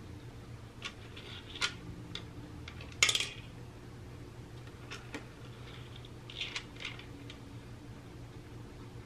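Dry kibble clicking and rattling against the plastic tiers of a Catit Senses 2.0 Food Tree as a cat noses at it: scattered light clicks, a louder clatter about three seconds in, and a small cluster of clicks about two-thirds of the way through.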